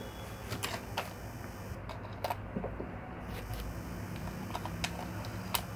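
A few small, sharp clicks and taps as a laptop RAM module is handled and pushed into its slot on the motherboard, over a steady low hum.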